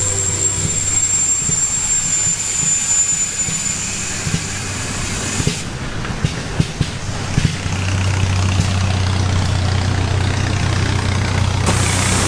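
Old engines running at an antique engine and tractor show, a steady low hum with scattered knocks and thumps in the middle. A thin high whine fades out about halfway through.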